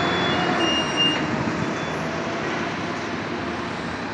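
Steady vehicle and road noise, with faint, brief high squeals in the first second or so.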